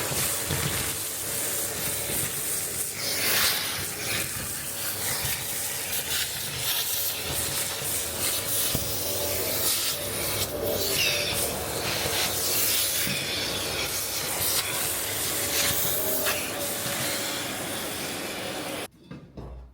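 Steady rough rubbing and hissing noise with scattered knocks, cutting off sharply near the end.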